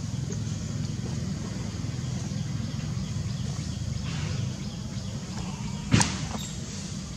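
A steady low mechanical hum, with one sharp click about six seconds in.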